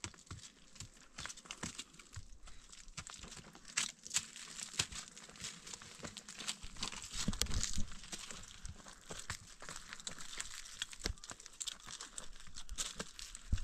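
Irregular crackling and rustling with many small sharp clicks, and a few low thumps around the middle.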